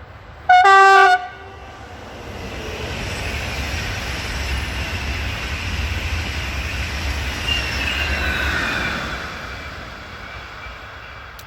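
Swiss electric train giving one short, loud horn blast, then passing by: its rumble builds over a few seconds and fades away, with a faint high whine sliding down in pitch as it goes.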